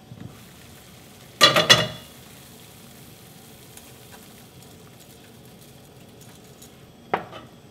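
Pot of water at a rolling boil, bubbling steadily. A brief ringing clank of the pot's metal-rimmed glass lid about a second and a half in, and a shorter knock near the end.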